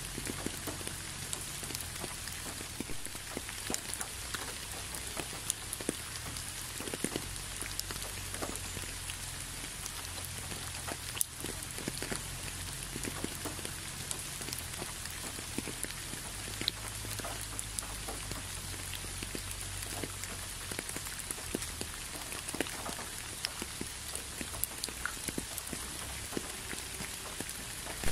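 Steady rain, a constant hiss with many separate drops landing close by, over a faint low rumble.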